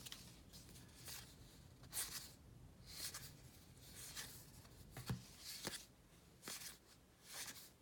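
Faint, soft swishes of trading cards being slid off a stack one at a time, about once a second.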